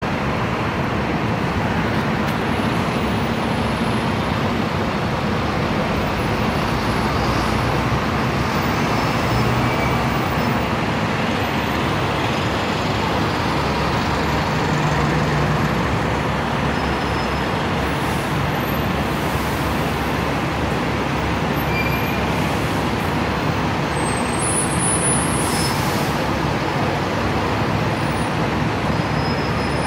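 Steady city street traffic noise, dominated by the running engines of double-decker buses, with a low engine hum under an even roar.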